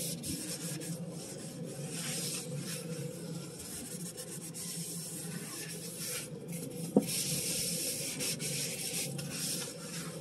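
A soapy sponge wiping a surface clean in repeated rubbing strokes, with a single sharp knock about seven seconds in.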